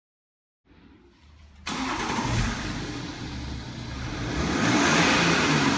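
BMW X6 E71 30d three-litre straight-six diesel starting up about a second and a half in with a sudden burst of sound, then running with a deep note shaped by a Maxhaust Active Sound exhaust sound generator, growing a little louder over the last couple of seconds.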